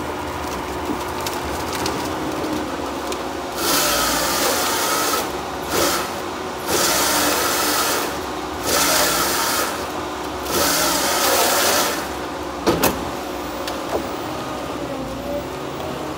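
Tigercat 234B knuckleboom loader's diesel engine running steadily while it works a bundle of pine logs, with five spells of loud rushing, hissing noise, each a second or two long, between about 4 and 12 seconds in. A sharp double knock comes about 13 seconds in.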